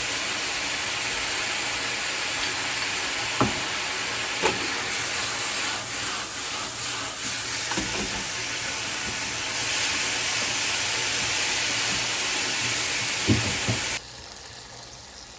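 Food sizzling in a frying pan, a steady hiss, with a few light knocks, likely a utensil against the pan. The sizzle cuts off suddenly near the end.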